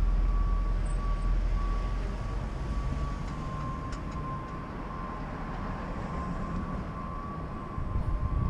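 City street traffic: a sedan passes close by with a low engine and tyre rumble that fades over the first couple of seconds, leaving steady traffic noise. A thin, steady high-pitched tone runs underneath.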